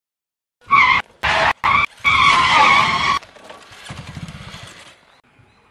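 Tyre-screech skid as a motorcycle brakes to a stop: three short squeals, then a longer one about two seconds in. After it, the engine runs faintly for a couple of seconds.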